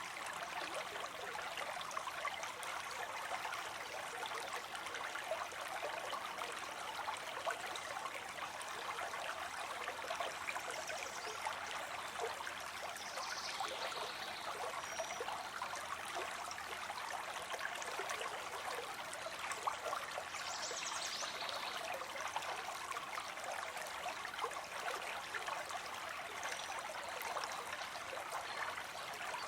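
Flowing stream water, a steady trickling and splashing babble.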